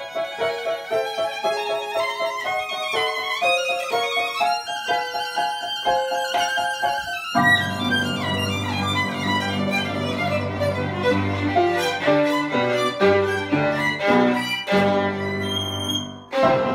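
Solo violin playing a bowed melody. About seven and a half seconds in, lower, fuller notes join beneath it, and the phrase ends with the bow lifted off about sixteen seconds in.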